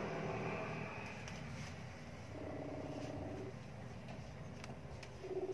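Ringback of an outgoing smartphone call playing faintly through the phone's speaker: a few steady tones that shift in pitch about once a second while the call rings out unanswered.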